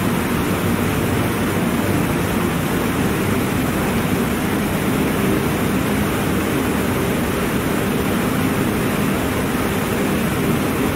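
An 18 m tiered waterfall pouring steadily, a constant even rushing of falling water.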